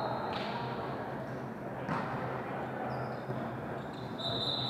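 Echoing gym noise at a volleyball match: voices of players and onlookers, with a single sharp smack about two seconds in. A steady high squeal cuts off just after the start and starts again about four seconds in.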